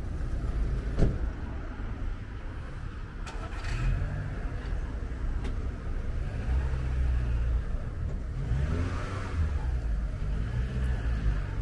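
A motor vehicle's engine running close by, heard with a low rumble, its note rising and falling through the middle stretch. A single sharp knock about a second in.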